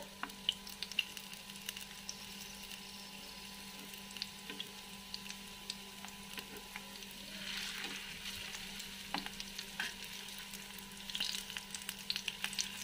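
Chicken seekh kebabs shallow-frying in oil in a flat nonstick pan: a steady sizzle with scattered pops. It swells louder twice, about halfway and near the end, as kebabs are turned over with a metal spatula, with a few light clicks against the pan.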